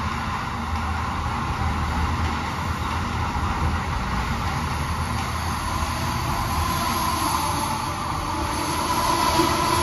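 Amtrak Amfleet passenger coaches rolling past on the rails with a steady wheel-and-rail rumble. A whine grows stronger in the second half.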